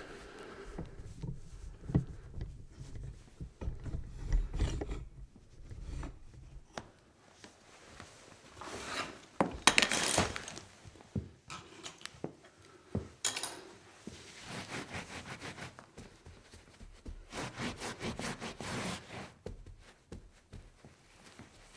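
Sound effect of a spill being cleaned up: low thumps and knocks at first, then several longer rubbing, scrubbing strokes with small clicks between them.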